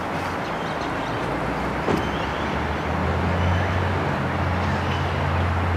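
Vehicle engine running with a steady low hum that grows louder about two and a half seconds in, over a constant background hiss. A light click just before two seconds in.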